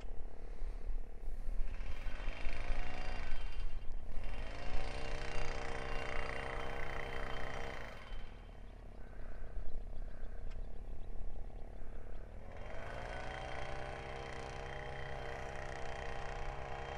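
Engine of construction machinery revving up and holding a steady pitch, three times over, dropping back in between, with a low rumble throughout.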